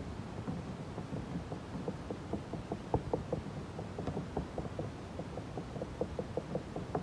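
A wooden stick tapping and dabbing a resin-soaked fiberglass mat patch against a boat hull, a steady series of light taps about three a second, working the wet mat down onto the repair.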